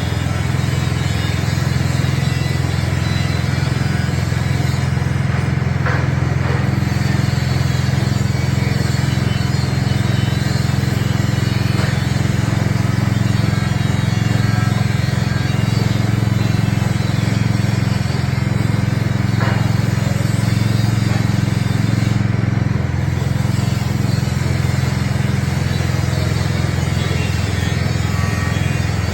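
Small Honda petrol engine running steadily at constant speed, driving a coconut milk press.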